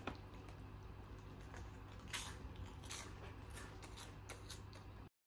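A plastic snack bag crinkling faintly a few times as a hand reaches in for the snacks, over a low steady hum.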